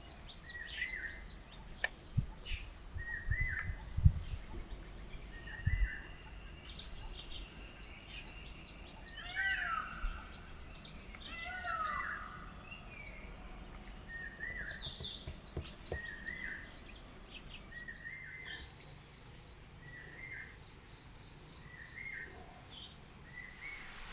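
Birds calling: one bird repeats a short call about every one and a half to two seconds while others chirp higher, over a steady high-pitched insect drone that stops about three quarters of the way through. Several low thumps sound in the first six seconds.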